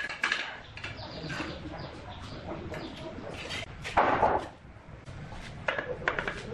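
Bricklaying with a steel trowel: short scrapes and clinks of the trowel on mortar and brick, a longer scrape about four seconds in as mortar is spread onto the end of a brick, then a few sharp taps near the end as the trowel handle knocks the brick into place.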